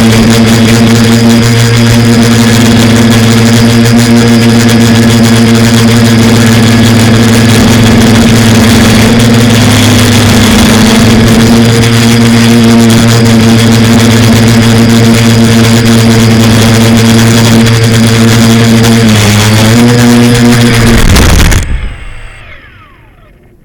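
FPV quadcopter's electric motors and propellers running with a loud, steady hum. The pitch wavers shortly before the end, then the motors cut off suddenly and spin down.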